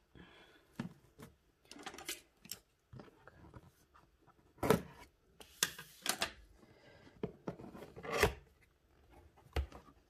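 Large scissors snipping and scraping on a cardboard box, then cardboard flaps rubbed and pulled open, with a few sharp knocks of the box and scissors on the table.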